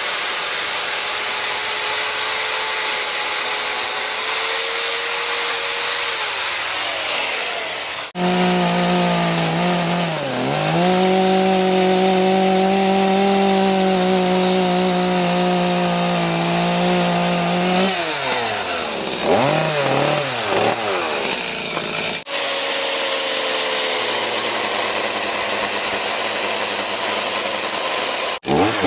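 Chainsaw running and cutting wood, its pitch sagging under load and climbing back several times, in stretches that break off abruptly.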